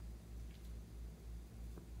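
Thick slime oozing from a balloon's neck into a glass dish: faint soft squishing over a low steady hum, with two faint ticks.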